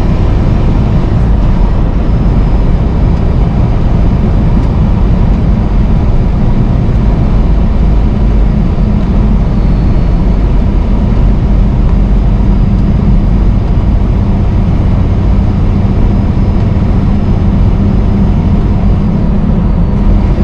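Semi truck's diesel engine and road noise heard from inside the cab while cruising at a steady speed: a constant low drone.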